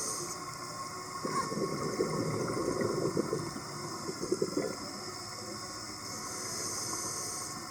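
Scuba diver breathing through a regulator underwater: a hiss of inhaled air at the start, then about three seconds of bubbling exhaust as the breath is let out, and another hissing inhale near the end.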